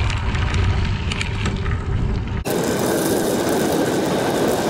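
Steady rushing noise of a bicycle ride on a crushed limestone trail: wind on the microphone and tyres rolling over the gravel. About halfway through, the noise switches abruptly from a low rumble to a higher hiss.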